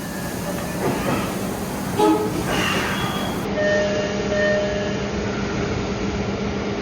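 MBTA Orange Line subway car door chimes: a short burst of tones about two seconds in, then a clearer series of steady electronic tones in the second half, over the steady hum of a stopped train.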